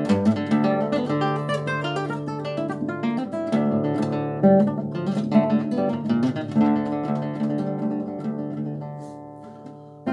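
Solo classical guitar playing a fingerpicked passage of plucked notes and chords. Near the end the notes ring out and fade away before the next phrase.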